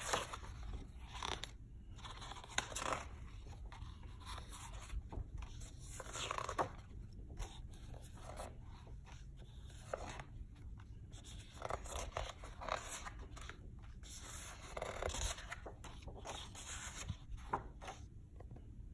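Pages of a large hardcover book being turned by hand one after another, each turn a brief papery swish and rustle, at an irregular pace with a few soft taps.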